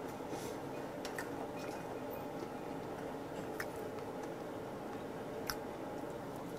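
Freshwater eel sizzling faintly on a wire grill over a tabletop burner, with a few light, sharp clicks of metal tongs on the grill.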